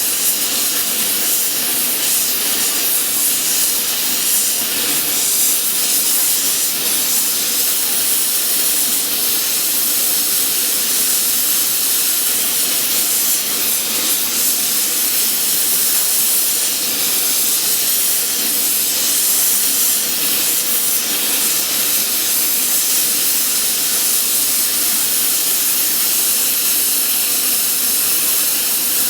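CNC plasma torch cutting a steel pipe: a loud, steady hiss of the plasma arc and its gas jet.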